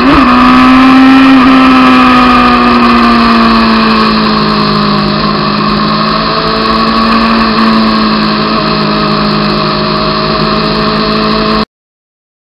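Honda CBR600 F2's inline-four engine running at high revs, its pitch and loudness slowly falling as the bike eases off. The sound cuts off suddenly near the end.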